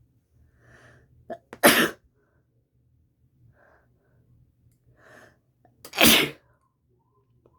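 A person sneezing forcefully twice, each sneeze led in by short breathy in-breaths; the first sneeze comes about one and a half seconds in, the second about six seconds in.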